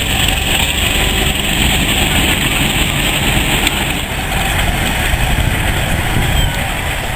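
Steady rumble and hiss of a heritage railway train, easing off slightly near the end.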